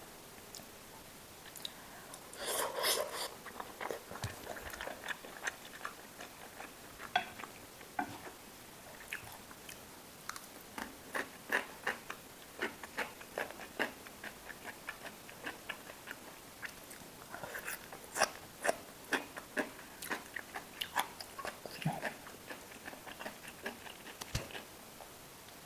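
Close-miked eating: chewing and biting food, with many short wet mouth clicks and a few louder crunchy bites, the loudest about three seconds in and again around seventeen to eighteen seconds in.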